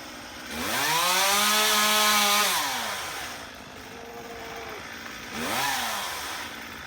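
Two-stroke chainsaw revved to full throttle for about two seconds, then dropping back to a low run, with a second short rev near the end.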